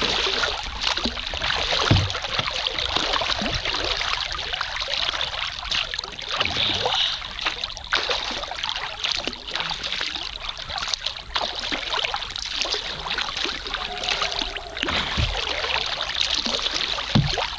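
Paddle strokes splashing and water rushing along a paddled river boat, with a few dull knocks.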